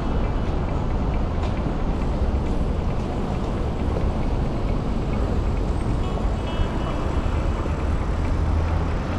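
Steady low wind rumble on the microphone of a moving bicycle, mixed with the hum of city traffic on the road alongside.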